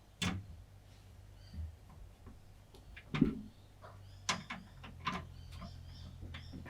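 Computer parts being handled during a PC build: a run of sharp clicks and light knocks, the loudest a dull knock about three seconds in, over a low steady hum.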